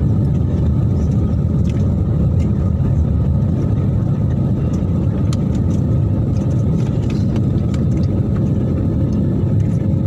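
Steady engine and airflow roar heard inside the passenger cabin of an Airbus A320-family airliner climbing out after takeoff, mostly a deep, even rumble.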